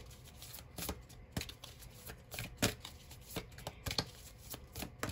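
Oracle cards being shuffled by hand: a string of irregular card clicks and slaps, two or three a second.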